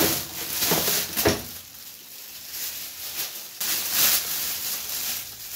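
Clear plastic bag crinkling and rustling as raw meat is pulled out of it into a plastic basin, with a few sharper crackles in the first second and a half.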